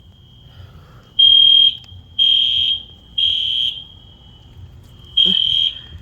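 Fire alarm horn beeping a single high tone in the temporal-three evacuation pattern: three half-second beeps about a second apart, a pause of about a second and a half, then the next set starting near the end.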